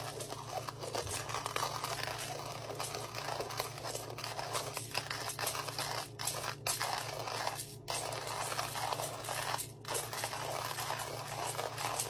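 Stainless steel hand-cranked coffee grinder grinding coffee beans: a continuous crunching grind as the crank turns, with three brief breaks in the second half.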